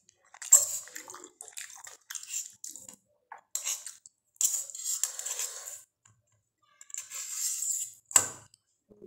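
Close-up eating sounds of soupy masala Maggi noodles: wet slurping in several bursts and a steel fork scraping and clicking in a steel bowl, with a sharp knock just after 8 seconds in.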